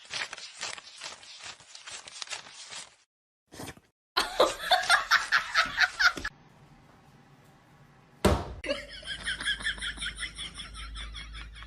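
People laughing across a few short back-to-back clips: bursts of laughter, then a fast, even run of laughs in the last few seconds.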